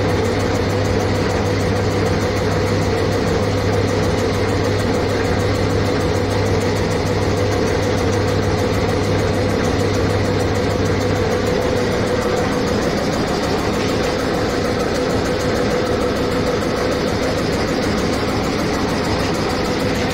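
Single-cylinder oil engine converted to an air compressor, belt-driven by an electric motor, running steadily. A low hum drops away a little past halfway.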